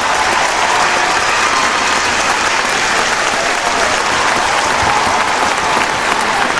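Crowd applauding and cheering: dense, steady clapping with voices calling out through it.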